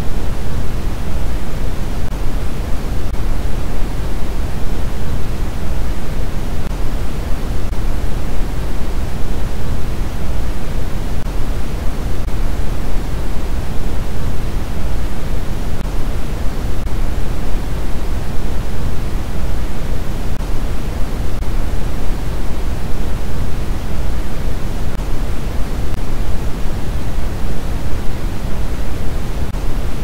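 Steady, unchanging generated noise track for relaxation and sleep, an even rush with more weight in the low end than in the high hiss.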